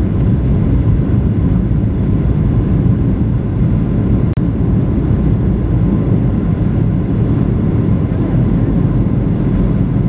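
Steady roar of a Boeing 737-900's cabin in flight on approach, from its CFM56-7B26 jet engines and the rush of air over the fuselage, heavy in the low end. The sound drops out for an instant about halfway through.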